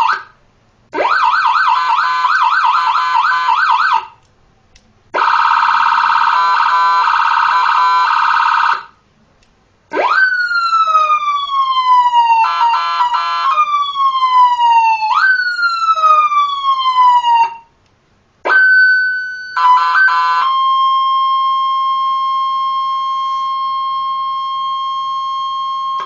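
Electronic seven-tone siren module switching through its tones with short gaps between them. It plays a fast up-and-down warble, then a rapidly chopped pulsing tone, then three sweeps that jump up and fall slowly with quick stuttering bursts between them, and ends on a steady single tone that fades slightly.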